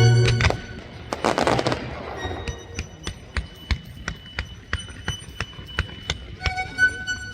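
Fireworks bursting over the show's music: a deep boom at the start, then a crackling, hissing burst about a second in, and a string of sharp pops and crackles after it.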